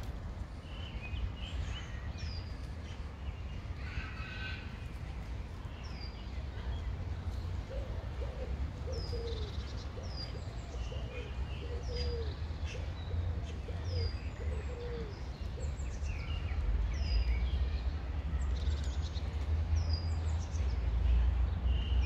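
Small songbirds chirping, with many short high notes that slide down in pitch, repeated through the second half, and a run of softer, lower calls in the middle. A steady low rumble lies under it.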